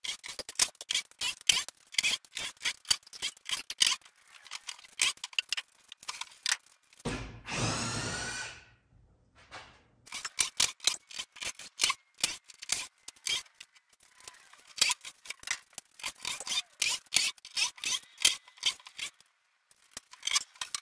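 Sped-up clatter of a wooden shipping crate being taken apart with a cordless drill: a rapid run of clicks and knocks from screws, bolts and plywood panels. About seven seconds in, the drill runs once for about a second and a half, a high whine wavering in pitch.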